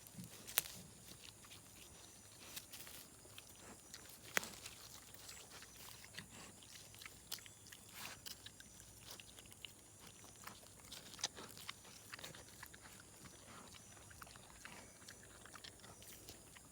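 Faint, irregular clicks and crackles, with two sharper clicks about half a second in and about four seconds in.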